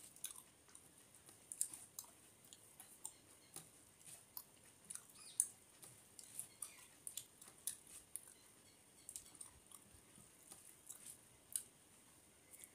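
Faint, irregular wet clicks and smacks of eating by hand: fingers mixing rice with cooked greens on a metal plate, along with chewing.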